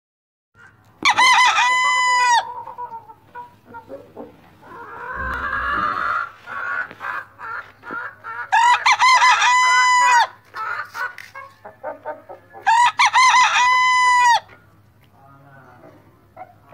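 Rooster crowing three times, each crow about a second and a half long and ending on a long held note, with short clucking calls between crows and a brief rushing noise about five seconds in.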